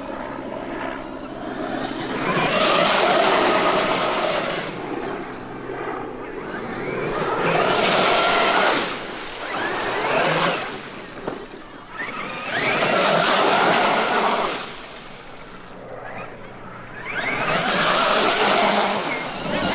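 Traxxas X-Maxx electric RC monster truck being driven, its motor and tyres swelling loud four times, about every five seconds, as it speeds past and away again.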